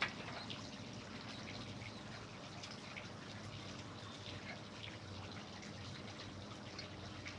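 Faint rustling and small scattered crackles of potting soil being handled and pressed around a succulent as it is planted, over a steady low hum.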